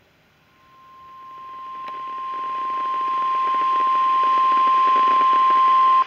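Weather radio sounding the 1050 Hz warning alarm tone: one steady pitch that swells from faint to loud over several seconds with hiss behind it, then cuts off abruptly. It signals an incoming severe weather warning.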